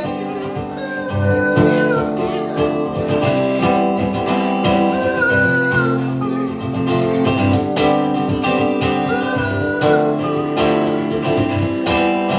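Live band playing an instrumental passage: strummed acoustic guitar chords, with a short high melodic phrase coming back about every four seconds.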